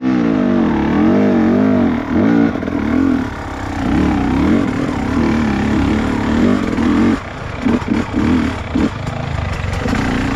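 Trail motorcycle engine running under throttle over rough ground, its pitch swinging up and down every second or so as the throttle is worked, easing briefly about seven seconds in.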